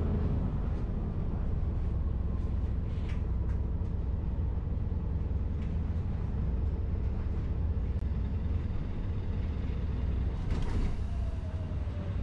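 Vehicle traffic noise: a steady, heavy low rumble, with a passing vehicle's pitch gliding down near the end.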